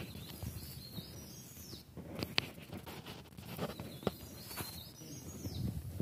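A bird singing a short whistled phrase of high notes that rise and fall, given twice about three seconds apart, with a few soft clicks in between.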